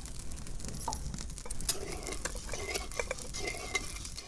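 Metal spatula stirring and scraping sugar and water in a metal kadai to dissolve the sugar for syrup. Short scrapes and clicks start about a second and a half in.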